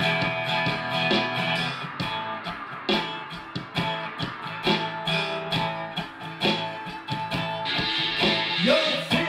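Acoustic steel-string guitar being strummed, a run of chords with regular strokes ringing on.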